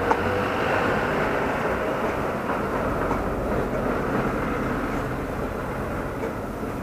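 Steady rumble of a passing motor vehicle on the street, slowly fading away.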